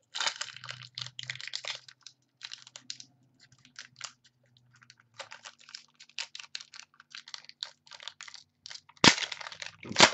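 Football trading cards being flipped one by one off a stack in the hands: a quick run of small card clicks and flicks, with two louder card snaps about nine and ten seconds in.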